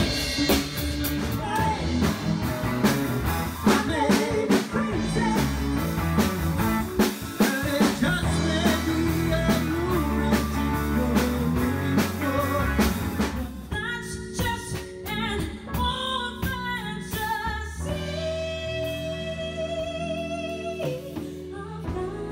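Live band playing 1980s pop-rock with lead singing over drum kit, electric guitar, bass and keyboard. About fourteen seconds in the drums drop out and it goes quieter, with long held notes.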